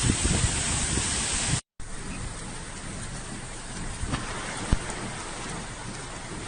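Heavy rain falling as a steady hiss, with a few sharp ticks of drops near the end. For the first second and a half it is louder, with low buffeting of wind on the microphone, and then breaks off for an instant at a cut.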